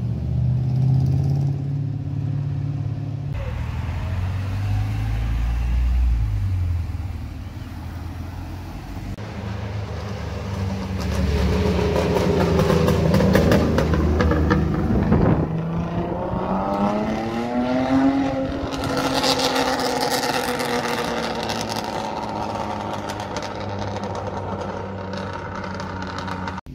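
Cars driving past one after another, engines accelerating. About halfway one revs up, dips briefly as it changes gear, then climbs steadily in pitch.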